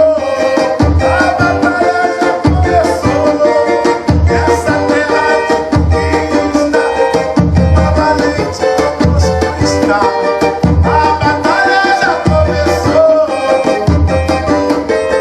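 Pentecostal 'corinho de fogo' music: a cavaquinho strummed over a tantan drum beating a steady, driving rhythm.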